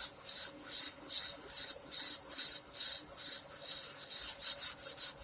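Fine-grit sandpaper rubbed back and forth along the metal frets of an electric guitar neck, a hissing rasp on each stroke at about two strokes a second, a little quicker near the end: fret levelling, grinding the higher frets down to the level of the low ones.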